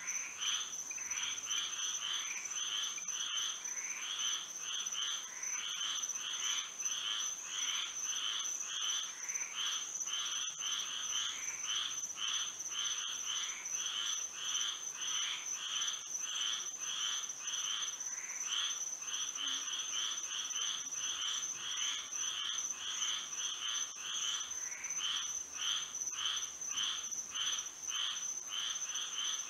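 A chorus of many frogs calling at night, with short pulsed calls overlapping in a steady rhythm of roughly two a second. A steady high-pitched tone sounds continuously above the chorus.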